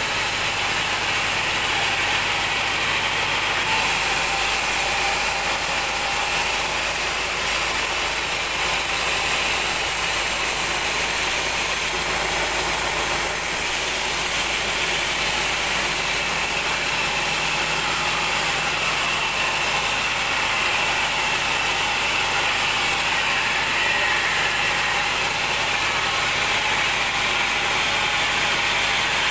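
Band sawmill running steadily, its blade ripping lengthwise through a large mahogany log.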